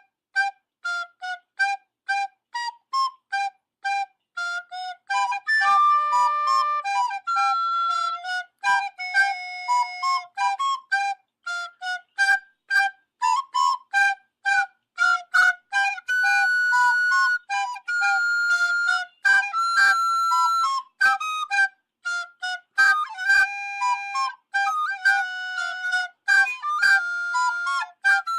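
A flute-like woodwind melody of quick, short detached notes, about three or four a second, broken up by stretches of longer held notes.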